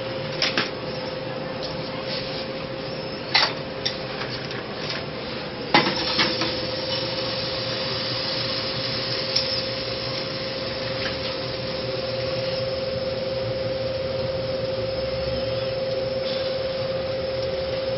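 Cookware being handled on a stove: a few sharp clatters of a frying pan and bowl in the first six seconds, then quieter clinking and scraping of a spoon stirring pancake batter in a bowl. A steady hum runs underneath.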